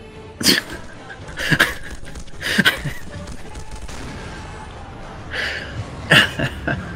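Action-film soundtrack: four loud, sudden hits like gunfire or crashes, about a second apart at first and again near the end, over a steady background.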